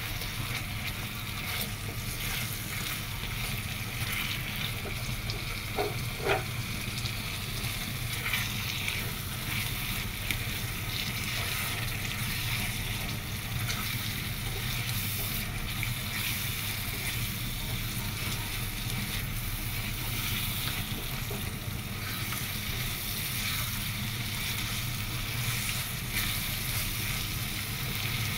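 Onions and spice paste frying in oil in a pan, sizzling steadily while a spatula stirs and scrapes them, with a few sharper scrapes about six seconds in.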